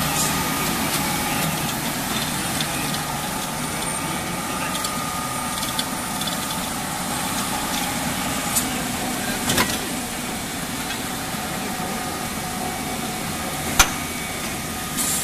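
Steel bar peeling and straightening machines running on a production line: a steady mechanical hum with a few constant motor tones. A handful of sharp clicks cut through it, the loudest near the end.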